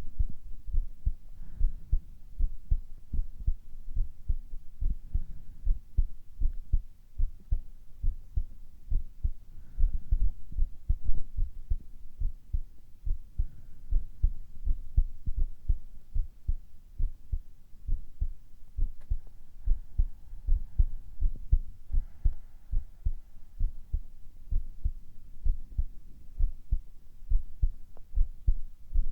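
Human heartbeat heard up close, a steady run of low double beats at an even resting pace.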